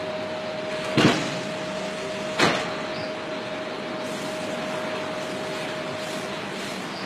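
Automated foundry casting machine running: a steady mechanical din with a constant tone, broken by two sharp knocks, about a second in and about two and a half seconds in. The tone stops near the end.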